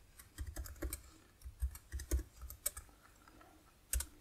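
Typing on a computer keyboard: a run of irregular keystrokes, with one louder key strike about four seconds in.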